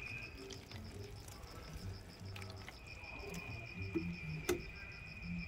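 Insects chirping in a rapid, even pulse with a steady high trill, over a faint patter of water sprinkled from a watering nozzle onto the leaves and soil of potted grape cuttings. A single sharp click comes near the end.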